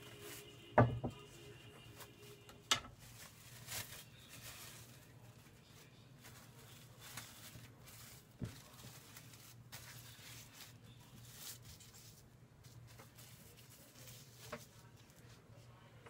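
Plastic cling film crinkling and rustling as it is handled and spread over dough balls, with two sharp clicks in the first few seconds, over a faint steady hum.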